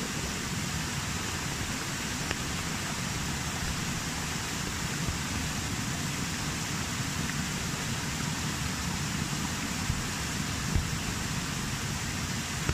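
Steady rushing noise of rain together with a small waterfall splashing into a rock pool, with a few brief taps.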